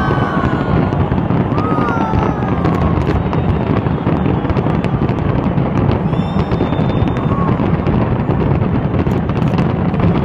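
Fireworks display going off in a dense, continuous barrage: many overlapping bangs and crackles with no gaps, at a steady loud level.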